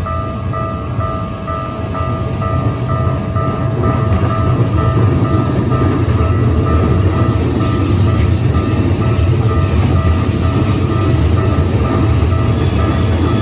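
Keikyu Line train passing over a level crossing: its heavy rumble swells about four seconds in and then holds. Under it, the crossing's electronic warning bell rings in a steady, quickly repeating pulse.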